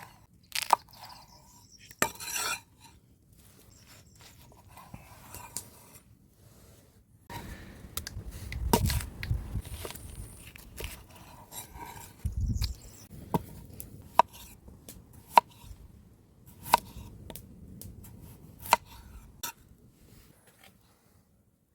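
Cooking utensils clinking and scraping against dishes and pans during food preparation: a string of sharp, irregular clicks and knocks.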